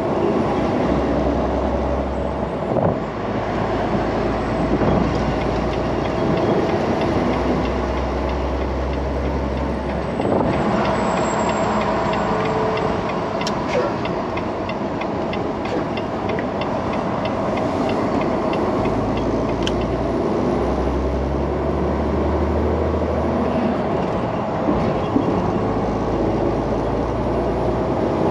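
Cab-interior drone of a Volvo semi-truck under way: diesel engine and road noise, steady, with the low engine rumble swelling and easing a few times.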